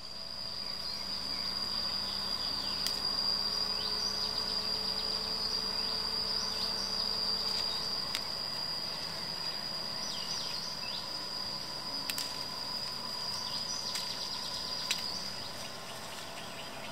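Outdoor insect chorus: one steady, high-pitched trill from crickets or cicadas that holds without a break, with short falling chirps and a few faint clicks over it.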